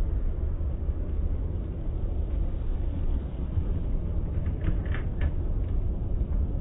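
Steady low rumble of car wash equipment at work, with a few brief higher-pitched sounds about five seconds in.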